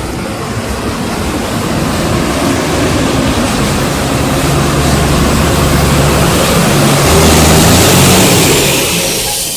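Coach bus driving past close by: its diesel engine runs with a steady low note under a broad rushing noise. The sound builds to its loudest about three-quarters of the way through, then falls away near the end.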